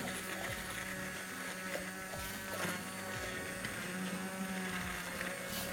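Electric immersion blender running in a pot of potato soup, a steady motor hum as it purées the soup.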